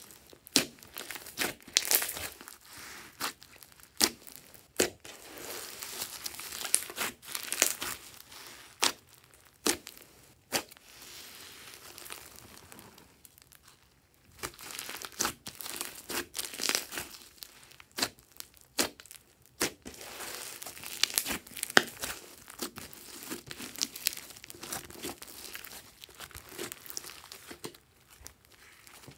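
Hands kneading, squeezing and stretching a large mass of sticky slime mixed with foam beads and sprinkles, giving wet, sticky pops and clicks at irregular intervals. There is a short quiet spell about halfway through.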